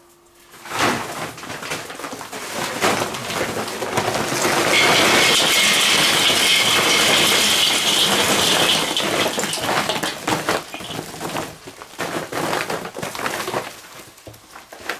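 Charcoal pouring from a paper sack into a steel kettle grill, a dense clatter of tumbling lumps that starts about a second in, is loudest in the middle and thins out near the end.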